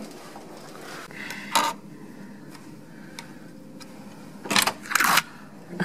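Hotel room door lock and handle being worked to open the door: a click about a second and a half in, then two louder clunks in quick succession near the end as the latch releases and the door opens.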